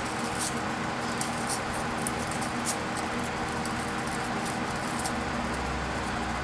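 Cut copper windings being pulled out of a microwave oven transformer's steel core: faint, scattered clicks and scrapes of wire, over a steady background drone.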